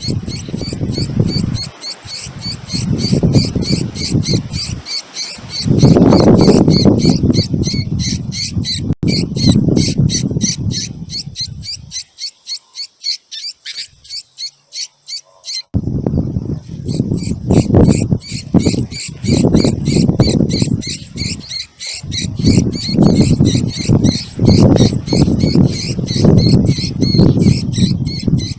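Hungry baby birds begging for food: rapid high chirps repeated many times a second, fading out for a few seconds about halfway and then resuming. A loud low rumbling noise comes and goes underneath, stopping during the same gap.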